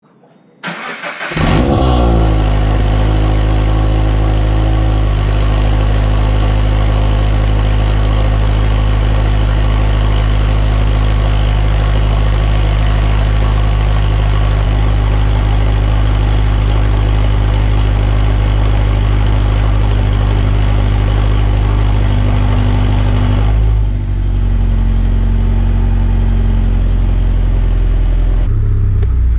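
Subaru BRZ's FA20 flat-four engine cranked by the starter and catching about a second and a half in, then idling steadily on a cold start through the Ace Laguna 90 catback exhaust. The idle steps down a little about 24 seconds in.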